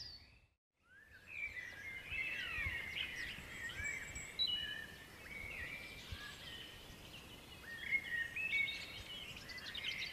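Several songbirds singing at once, a busy mix of short whistled notes, slurs and trills. It begins after a brief silent gap just after the start.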